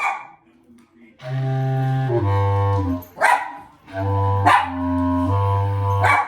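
A wind instrument playing a phrase of held low notes, each about a second long, while a dog barks three times over it, the barks the loudest moments.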